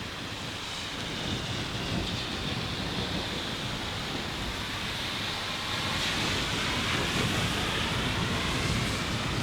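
Rain falling in a thunderstorm, with a low rumble of rolling thunder that slowly grows louder.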